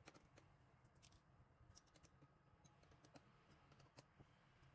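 Faint, irregular metal clicks of an Allen key working the socket-head screws of a small milling table bolted to a mini lathe's saddle.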